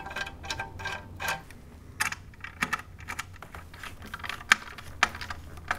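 A 4 mm Allen driver making sharp, irregular metallic clicks and ticks as it turns M6 flange-head bolts into an aluminium skid plate and its bracket.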